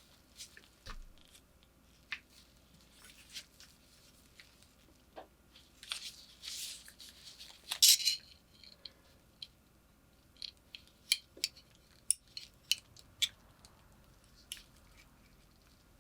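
Sharp clicks and short scrapes of hand work on a small metal object, with a louder brief rasp about eight seconds in and a quick series of sharp clicks near the end.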